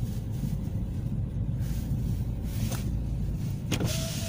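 Steady low rumble of a car driving, heard inside the cabin. About three and a half seconds in there is a click, and the electric side window starts winding down with a steady motor whine.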